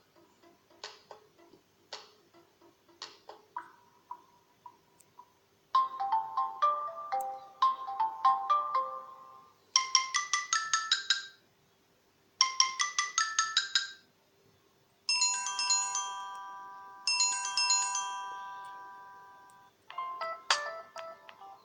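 Samsung Galaxy S7 stock ringtones played one after another. Sparse soft ticking clicks come first. About six seconds in, a short bright plinking tune starts, followed by two quick rising runs of notes and a held chord of chime tones, and near the end a new quick pattern of plinks begins.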